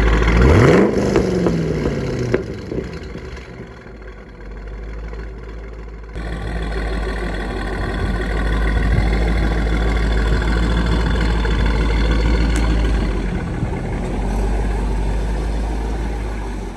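Corvette V8 engine revved once near the start, its pitch climbing sharply and falling back. About six seconds in the sound changes abruptly to a V8 idling with a steady low exhaust rumble.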